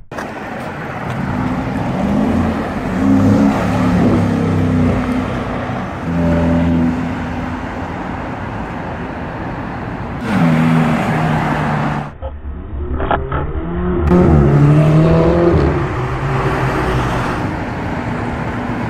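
Performance car engines revving and accelerating through city traffic, over several cut-together clips; the engine notes rise in pitch several times. Traffic noise runs underneath.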